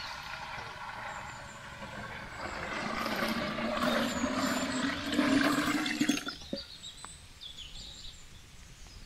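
Water poured from a metal bowl into a large aluminium cooking pot, a steady splashing gush that grows louder for about six seconds and then stops abruptly.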